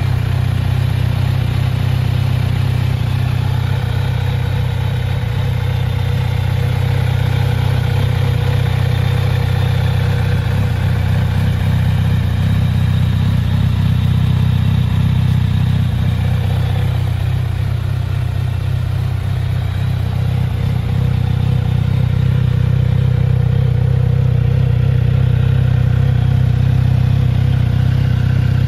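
Kawasaki Z900RS Cafe's 948 cc inline-four engine idling steadily.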